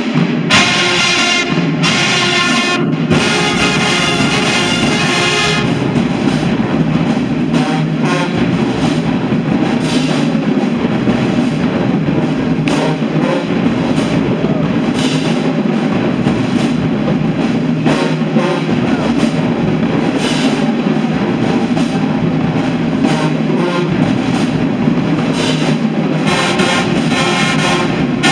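High school marching band playing: brass carrying a tune over a drumline, loud and steady throughout.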